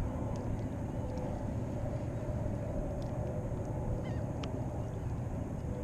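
Steady low outdoor rumble of wind and water, with a faint hum and a few faint bird chirps in the middle.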